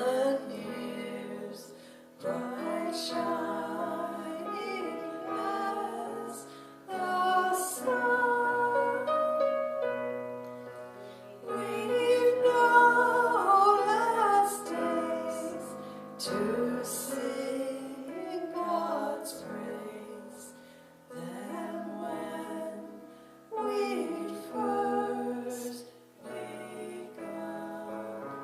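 Music: a slow hymn, a held melody line over a soft plucked or keyboard accompaniment, in phrases with short breaks between them.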